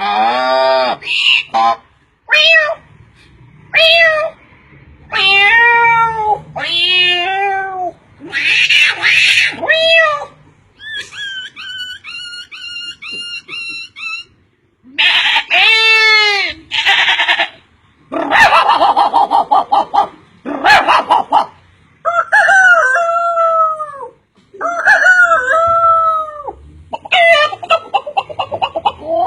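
A man's voice imitating animals: a quick succession of different pitched animal calls with short gaps between them, with a run of quick repeated chirps around the middle.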